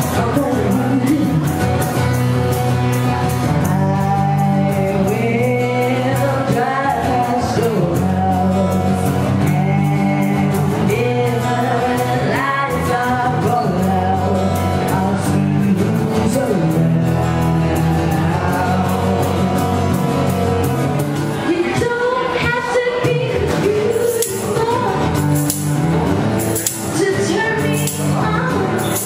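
Live song: a woman singing over a strummed acoustic guitar. Near the end a tambourine comes in, jingling about once a second.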